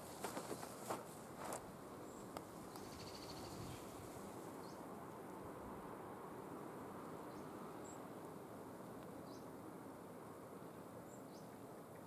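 Footsteps crunching on a dirt path during the first second and a half, then a steady background hiss with a few short, high, rising bird chirps every couple of seconds.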